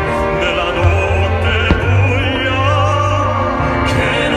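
Operatic singing with vibrato over orchestral accompaniment, with one sharp crack about a second and a half in.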